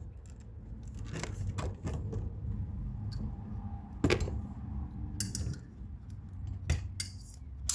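Scattered light metallic clicks and scrapes of a new seal-retaining snap ring being worked down into its groove inside a 49 mm motocross fork tube, with a sharper click near the end as the ring snaps into the groove.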